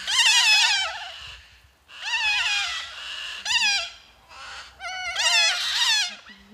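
Parrots calling in repeated bouts of wavering, wobbling cries, about four bouts separated by short gaps.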